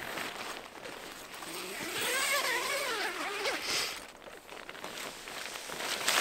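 Tent door zipper being pulled open: a buzzing rasp whose pitch rises and falls as the zip slides around the curved door, with short rasps of movement after it.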